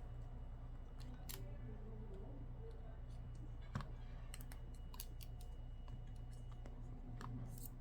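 Faint, scattered light clicks and taps of an iPad 2 and its replacement digitizer glass being handled and pressed into place, with one sharper tap about four seconds in, over a steady low hum.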